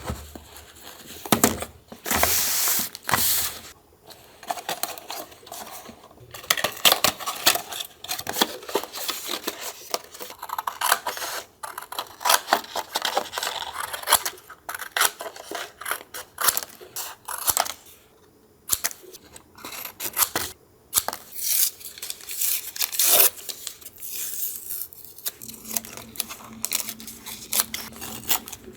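Paper and collage materials handled close to the microphone: tearing and rustling in irregular bursts, with short sharp clicks and taps between them.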